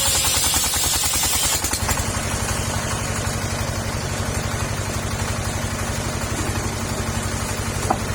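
Petrol engine driving a circular saw, running with steady fast pulses. For the first second and a half or so the blade is cutting through sengon wood with a loud hiss; after that the engine runs on without the cutting noise, and there is a small click near the end.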